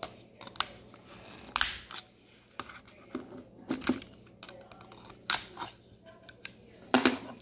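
Hard 3D-printed plastic parts of a spool adapter being worked by hand, giving a string of about a dozen sharp plastic clicks and cracks. The loudest come near the end.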